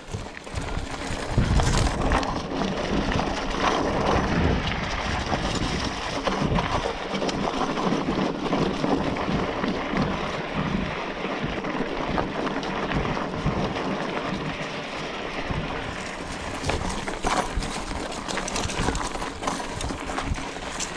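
Scott Spark 960 full-suspension 29er mountain bike rolling down a rocky dirt trail: tyres crunching over loose stones and dry leaves, with the bike rattling and knocking over the rough ground. The noise picks up sharply about a second and a half in.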